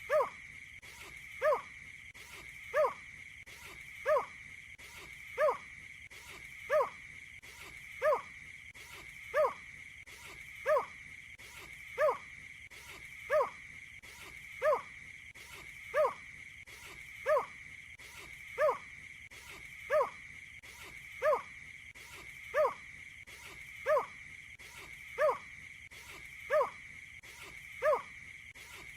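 A bird's short, hoot-like call, one note repeated evenly about every 1.3 seconds, over a steady high-pitched tone.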